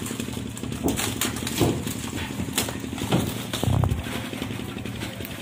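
Live mud crabs handled and dropped into plastic crates: irregular clicks and knocks of shells against hard plastic, with a heavier thump a little under four seconds in, over a steady low hum.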